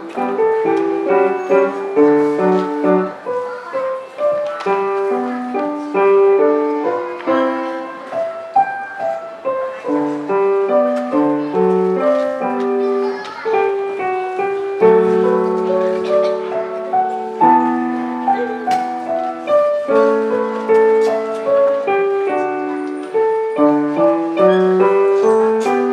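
Grand piano played solo: a quick melody of separate notes moving up and down over a lower accompaniment, with a couple of longer held chords a little past halfway.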